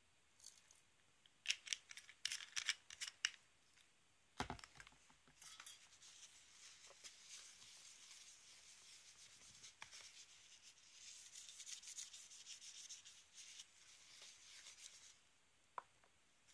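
A few sharp rustles and clicks and a thump, then a paper tissue rubbing back and forth on a glossy tabletop for about ten seconds, wiping up spilled stove alcohol.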